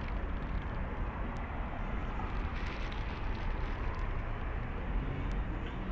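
Steady outdoor urban background noise, mostly a low rumble of distant traffic, with faint crinkling of paper food wrappers being handled.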